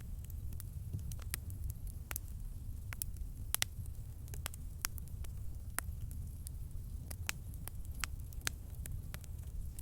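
Campfire crackling: irregular sharp pops and snaps of burning wood, a few a second, over a steady low rumble.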